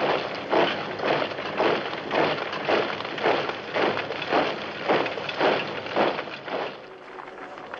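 A column of soldiers marching in step, their boots crunching on a dirt road in unison, about two steps a second; the tramping stops about seven seconds in.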